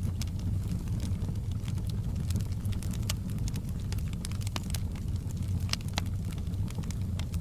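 Wood fire in a fireplace crackling, with irregular sharp pops and snaps over a steady low rumble of burning.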